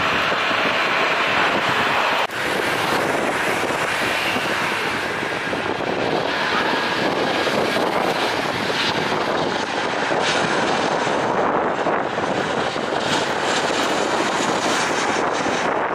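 Jet airliner engines, a steady rushing noise, with a sudden break about two seconds in. After the break it is a Boeing 737-900ER's turbofans on approach to land.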